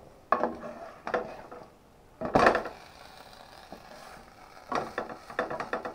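Frying pan and kitchen utensils being handled: a few separate knocks, a louder clatter about two and a half seconds in, then a quick run of light taps near the end.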